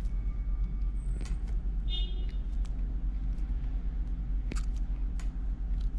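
A steady low rumble in the background, with a few faint clicks and ticks of the steel leader wire and crimp being handled, and a brief high squeak about two seconds in.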